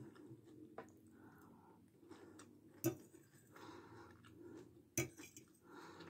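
A metal spoon clinking against a glass plate three times as food is scooped up, the second and third clinks the loudest, with soft chewing in between.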